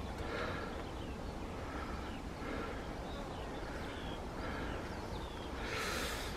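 Outdoor ambience: scattered short bird chirps over a steady low rumble, with a brief rush of noise near the end.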